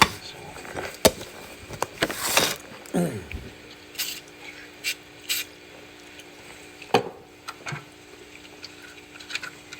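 Scattered clicks and knocks from the inner mechanism of a Brother VX-1120 sewing machine as it is handled and worked by hand after fresh grease. A faint steady hum starts about three and a half seconds in.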